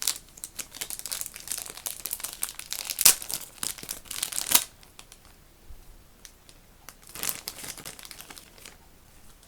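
Packaging crinkling and rustling as it is handled and opened to take out a small toy vacuum cleaner, in dense crackles for the first four and a half seconds, then quieter, with another spell of crinkling about seven seconds in.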